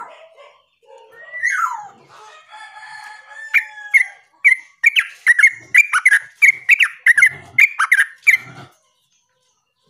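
Yellow-vented bulbul calling. A whistled note slides downward about a second in. From about three and a half seconds, a fast run of short, sharp chattering notes follows, about three or four a second, and breaks off near the end.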